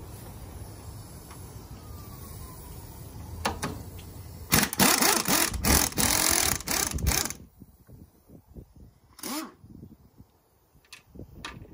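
Power impact wrench hammering on the rocker arm shaft bolts of a John Deere 2010 cylinder head, in one loud run of about three seconds starting some four and a half seconds in, followed by a few light clicks.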